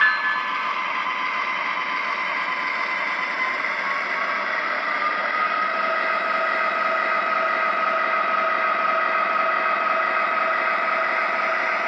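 A model diesel locomotive's onboard sound system plays a diesel engine running under a steady whir of the model's wheels and motors on the track. The engine note rises a little about five seconds in. The locomotive is an MTH RailKing ES44AC in O gauge, and the tail of a horn blast ends right at the start.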